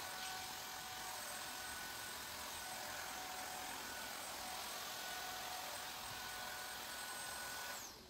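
Cordless handheld vacuum cleaner running steadily, a rushing of air with a high motor whine. It is switched off near the end, and the whine falls away as the motor spins down.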